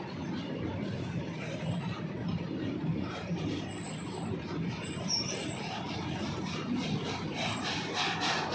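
Freight train running along the track: a steady low rumble of the wagons and locomotive.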